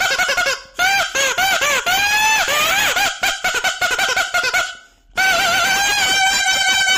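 Toy pipni whistle (bhonpu) blown in a string of squeaky, wavering honks, its pitch bending up and down, with two short breaks. Near the end it holds a steadier tone.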